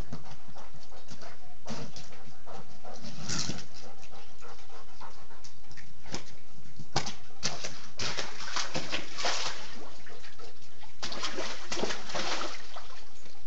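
A dog playing in a shallow rainwater puddle on concrete, pawing and nosing a rock along the bottom, with the dog's own small vocal sounds. Splashing comes in bursts, a few seconds in, again in the middle and near the end, between sharp knocks and clicks.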